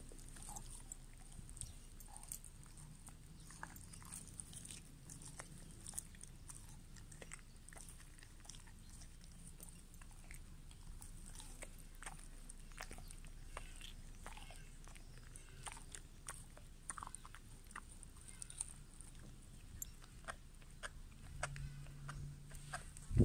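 A beagle chewing and biting on a piece of raw meat: faint, irregular short clicks and crunches of its teeth.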